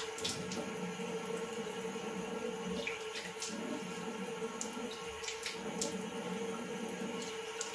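Bathroom tap running steadily into a sink, with a steady hum under the flow and a few short splashes as water is cupped up to wet the nose and face.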